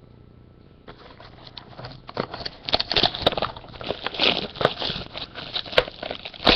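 Rustling and clicking of cardboard trading-card boxes and sealed packs being handled and opened. It starts about a second in and grows louder and busier, with many quick taps.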